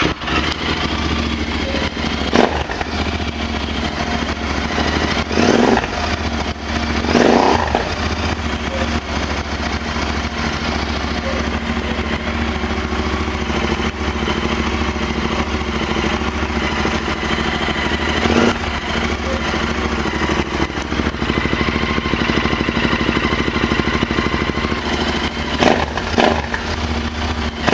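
Royal Enfield Interceptor 650's parallel-twin engine idling through an AEW TE102 stainless steel megaphone exhaust with its dB killer fitted, freshly started. A few short throttle blips lift the note, the clearest about seven seconds in.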